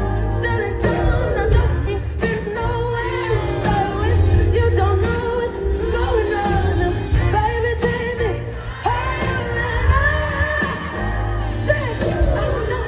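A live pop band plays with a woman singing lead over bass, drums and electric guitar, heard from within the audience in a large hall.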